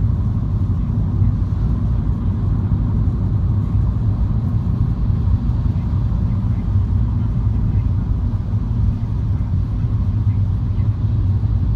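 MINI car driving steadily: a continuous low rumble of engine and road noise.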